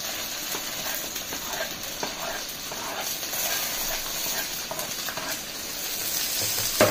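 Sliced carrots, capsicum and onions sizzling in hot oil in an iron Chinese wok, stirred and scraped with a wooden spatula. A sharp tap comes near the end.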